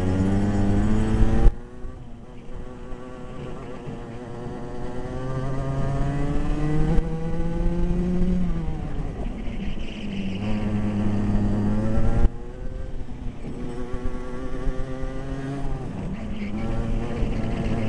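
Racing kart engine heard from on board at race pace, its note climbing as the kart accelerates along the straights. The note drops away sharply about a second and a half in and again around twelve seconds, as the throttle is lifted for corners, then climbs again.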